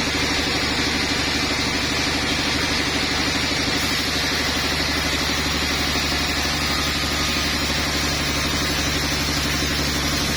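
Sawmill machinery running steadily, an engine-like drone with a fast, even pulsing hum that holds unchanged throughout.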